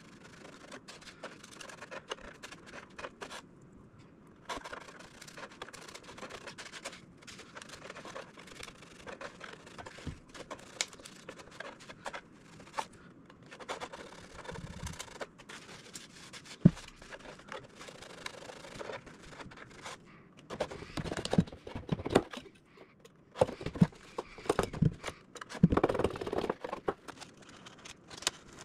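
Box cutter knife blade scraping and cutting through balsa and plywood in a model airplane fuselage, irregular scratching strokes with scattered clicks. The strokes grow louder, with sharper knocks and taps, in the last third.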